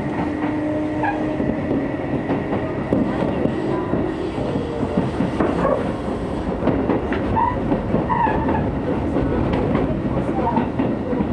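Hokuso Railway 9000 series commuter train running, heard from inside the car: a steady rumble of wheels on rail with scattered clicks.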